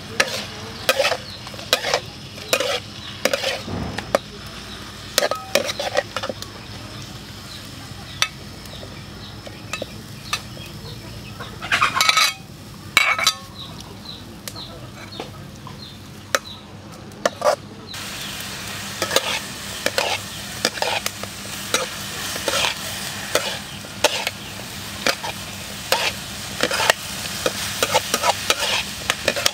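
A metal spatula scrapes and clacks against a steel wok as vegetables are stir-fried, sizzling. About two-thirds of the way in, the sizzling becomes louder and steadier.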